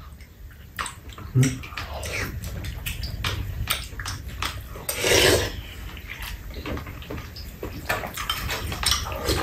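Metal spoons clinking and scraping against ceramic bowls as two people eat from rice bowls and soup, in short irregular clicks, with a brief louder sound about five seconds in.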